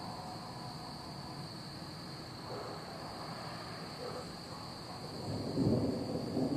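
Distant thunder rumbling low, swelling about five seconds in, over a steady high-pitched chorus of night insects.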